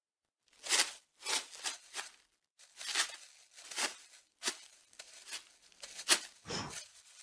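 Plastic wrap crinkling and rustling in a run of short bursts, about two a second, as the clinging film is pulled and stretched between the fingers.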